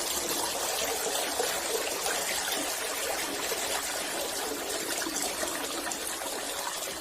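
Running water trickling and pouring steadily as hands are rinsed with clean water.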